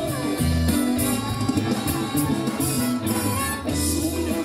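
Live stage band playing amplified music: an instrumental stretch with a bass line and a drum beat.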